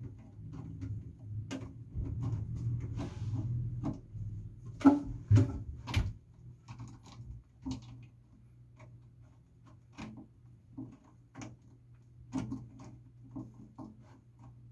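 Irregular clicks, knocks and clinks of tools and pipe fittings being handled during a faucet repair under a sink, with a few sharper knocks about five to six seconds in.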